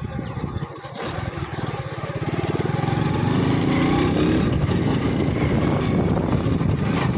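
Engine of a motorcycle loader rickshaw (a motorcycle pulling a cargo trolley) picking up about a second in. It revs up with rising pitch as it pulls away and gathers speed, then runs steadily.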